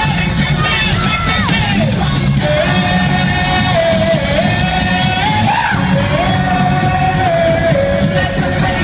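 Loud live pop music played over a concert hall PA, with heavy bass and a singing voice holding long notes that slide from one pitch to the next, while the crowd yells.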